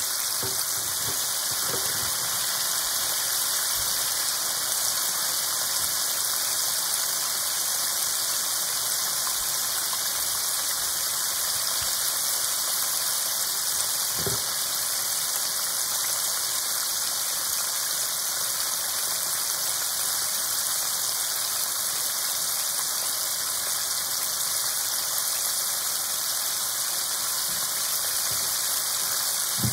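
Breaded chicken pieces deep-frying in a pan of hot oil: a steady sizzle and crackle, with a soft pop about two seconds in and another about halfway through.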